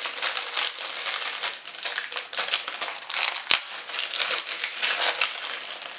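Packaging around a small metal cutting die being handled and unwrapped, crinkling irregularly, with one sharp snap about three and a half seconds in.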